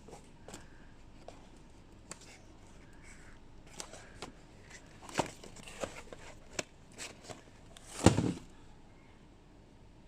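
Packaging and products handled during unboxing: scattered clicks, taps and short rustles, with a louder knock or bump about eight seconds in.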